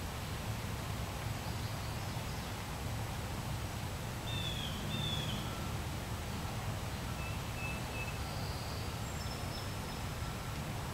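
A few short, high bird chirps, two close together near the middle, over a steady outdoor hiss with a low rumble.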